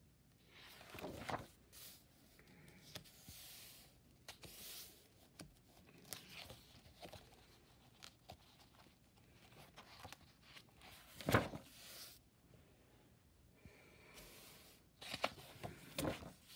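Pages of a spiral-bound sketchbook being turned and handled: faint paper rustles and swishes at irregular intervals, with a few sharp ticks. The loudest rustle comes about eleven seconds in, and a quick pair of rustles comes near the end.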